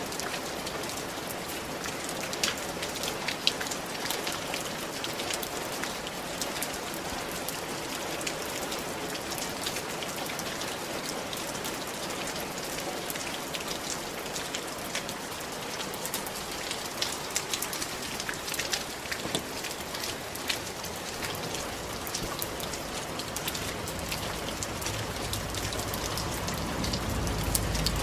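Steady rain falling on clay roof tiles, many separate drops ticking through a constant hiss. A low rumble builds up under it in the last several seconds.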